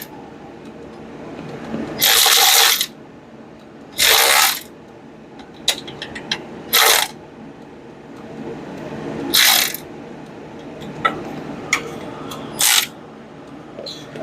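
Ratchet wrench being worked in five short bursts of clicking with pauses between them, with a few faint clicks in the gaps.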